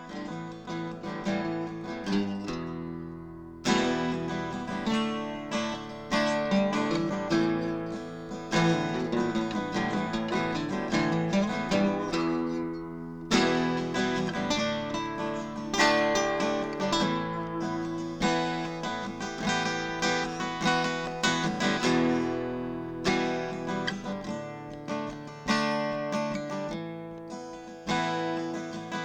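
Background music: acoustic guitar being plucked and strummed.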